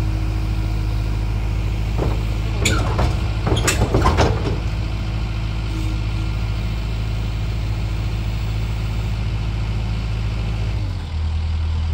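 Takeuchi TL10V2 compact track loader's diesel engine idling steadily, with a short burst of knocks and rattles a few seconds in. Its note drops a little near the end.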